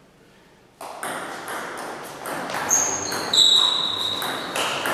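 A table tennis rally begins after almost a second of near silence: the celluloid ball clicks off rackets and table again and again at an uneven pace. Around the middle, high squeaks come from sneakers sliding on the gym floor.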